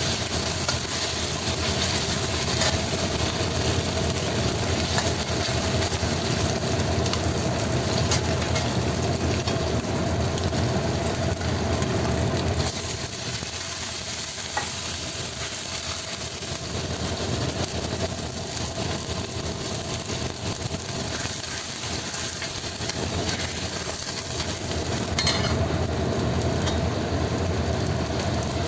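Food sizzling in hot oil in a pan while it is stirred, with scattered light clicks and a steady hum underneath.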